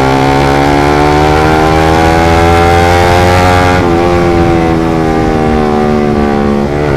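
Suzuki GSX single-cylinder motorcycle engine breathing through a short Proliner aftermarket exhaust, accelerating hard with its pitch climbing. It upshifts about four seconds in and again near the end. The rider finds the short exhaust makes the engine pull weakly and stutter ("brebet") at low revs.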